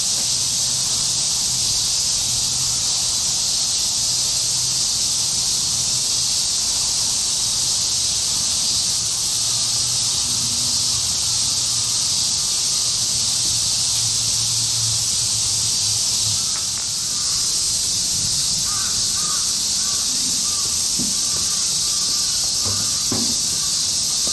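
Steady, high-pitched drone of an insect chorus, with crows cawing a few times in the second half.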